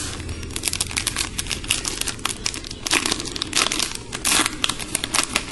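A trading-card pack wrapper being torn open and crinkled by hand, a rapid, irregular run of crackles.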